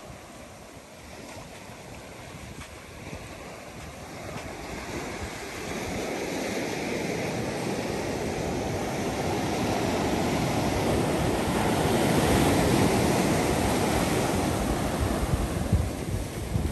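Ocean surf washing in, a rushing wash that swells over several seconds and is loudest past the middle, with wind gusting on the microphone.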